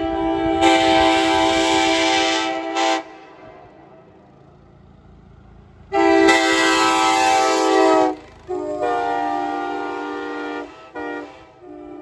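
Nathan K5LA five-chime air horn, from a 1977 Amtrak FL9 locomotive, sounding a series of loud blasts separated by short pauses. The first blast holds for about three seconds and is followed by a few seconds' lull. Two more long blasts follow, then a short toot, and another blast starts at the very end.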